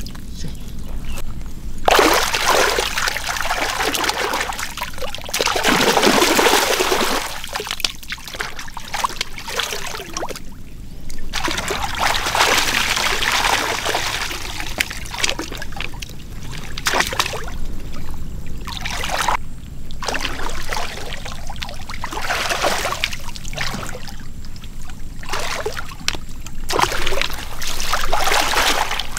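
Water splashing and trickling in irregular stretches a few seconds long, with short pauses between them.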